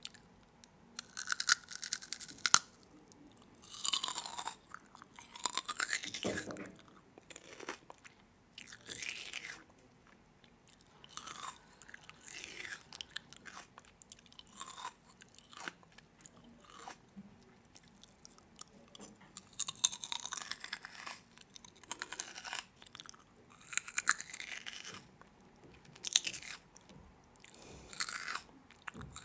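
Close-miked chewing and biting of crunchy food: irregular crackly bursts of about a second each, with short quiet gaps between mouthfuls.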